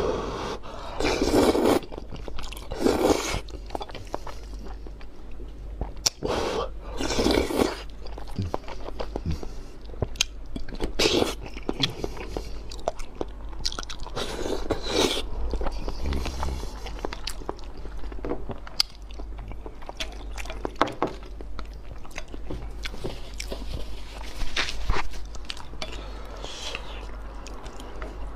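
Close-miked mouth sounds of a person eating spicy instant noodles: loud slurps of about a second each at intervals, with wet chewing between them, and a bite into a boiled egg about halfway through.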